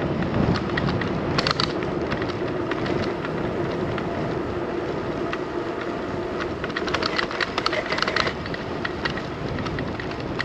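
Riding noise from a bicycle on the move: a steady rumble of tyres and wind, with bursts of rattling about a second and a half in and again around seven to eight seconds.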